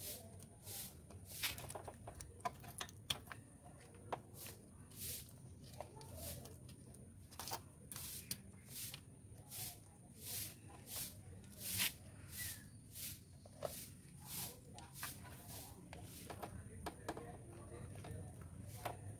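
Faint metallic clicks and light scraping as a motorcycle drive chain and front sprocket are handled and worked on by hand. The clicks come about every half second over a low steady hum.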